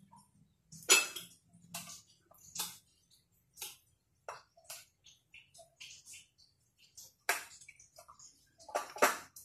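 Light, irregular clicks and scrapes, one or two a second, as raw chicken pieces are rolled in beaten egg and pressed into flour on plates and bowls.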